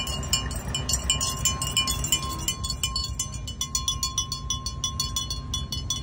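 Low, steady engine rumble of a decorated tractor and a pickup truck passing by, with a bright, rapid high jingling over it.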